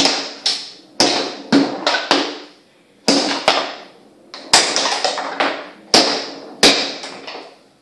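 Foosball table in fast play: about a dozen sharp, ringing clacks as the ball is struck by the plastic figures and knocks against the table and rods, coming in irregular clusters with short pauses between.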